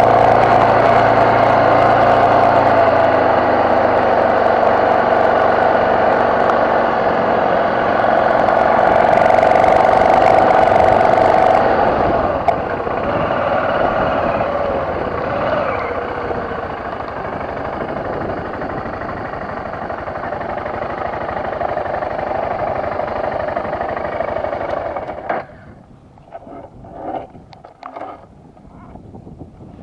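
BMW F650GS motorcycle engine running under way on a dirt trail, its pitch shifting a little with the throttle. It drops away abruptly about 25 seconds in, leaving only faint wind and scattered knocks.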